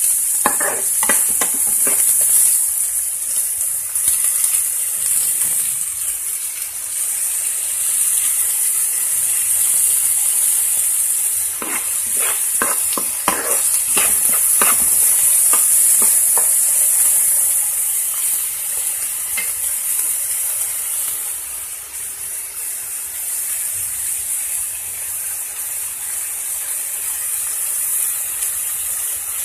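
Chopped onions and green chillies sizzling steadily in hot oil in a metal kadai, frying down until well browned. A ladle scrapes and clinks against the pan in short spells near the start and again about halfway through.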